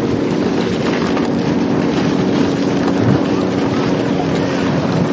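Dog sled gliding over packed snow: a steady rushing from the runners, with wind buffeting the microphone and a steady low hum underneath.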